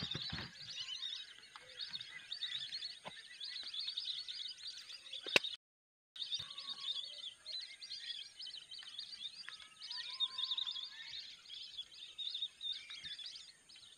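Many short, high whistled chirps of lesser whistling ducks (belibis) calling continuously. The sound cuts out completely for about half a second after a click, roughly five and a half seconds in.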